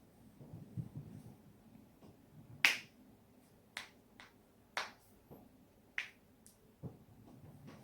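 Human joints cracking: a series of short, sharp pops at irregular spacing, the loudest about two and a half seconds in.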